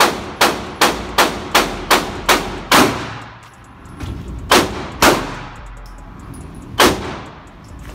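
Gunshots echoing in an indoor shooting range. A fast string of about eight shots comes at an even pace over the first three seconds, then a pair about half a second apart, then one more shot near the end.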